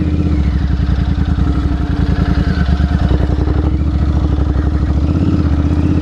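Motorcycle engine and exhaust running at steady revs while riding, with a rapid, even beat of exhaust pulses.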